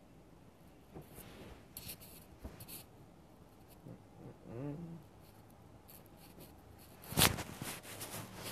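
Plastic cling film crinkling and rustling close to the microphone as it is handled over a face mask, in scattered short bursts, with a brief hum about halfway through. A loud sharp rustle near the end is the loudest sound.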